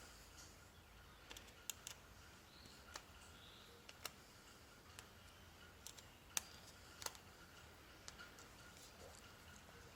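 Faint, scattered small clicks and taps, about a dozen spread unevenly, from hands handling and curling doorbell wires.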